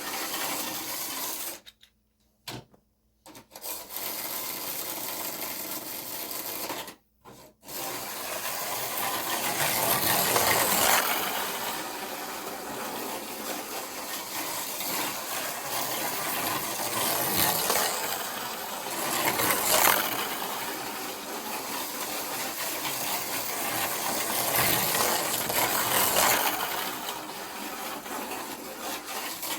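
Micro slot cars running on a plastic slot-car track: a buzzing, rattling whir that swells and fades as they lap. It cuts out twice in the first few seconds, when power to the track stops.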